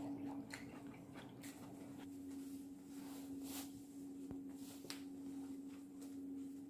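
Quiet room tone: a steady low hum under a few faint, scattered clicks and soft rustles of light handling.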